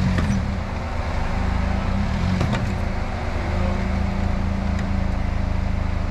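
Jeep Wrangler Rubicon engine running steadily at a low pitch, with a couple of brief knocks.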